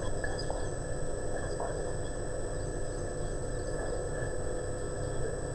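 Steady background hum and hiss of the room and recording, with a faint high steady tone and no distinct events.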